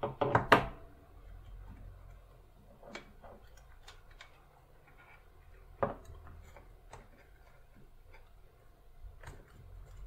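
Clicks and knocks of a Stream Deck Mini's small plastic case and circuit board being handled and pressed together during reassembly: a quick burst of loud clicks at the start, one sharp click a little before six seconds in, and scattered lighter ticks between.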